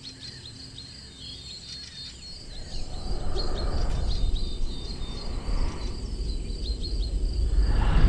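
Birds chirping in a quick repeating chatter. From about three seconds in, gusty wind rumbles over the microphone and grows louder, drowning the chirps by the end.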